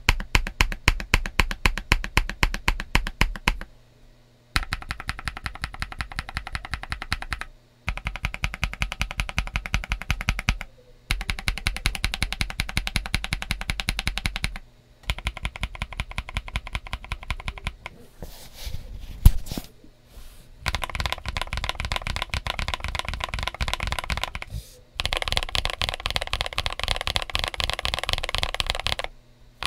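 Typing on a Mxrskey CK650 aluminum gasket-mount 65% keyboard with Leobog Ice Soul tactile switches and Feker CSA PBT keycaps: runs of rapid keystrokes broken by short pauses every few seconds. A little after halfway there are only a few scattered presses and one sharper clack.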